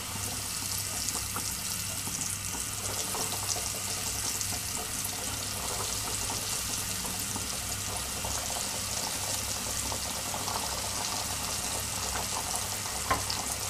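Breaded vegetable cutlets deep-frying in hot oil: a steady sizzle full of fine crackling that comes up as the cutlets go in, over a low steady hum. One sharp click near the end.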